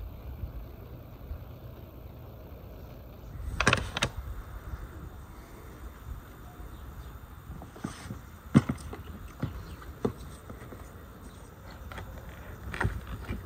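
Scattered knocks and clicks of a knife and hands working bananas on a wooden table, with a short rattling cluster a few seconds in and single sharp knocks later, over a steady low rumble.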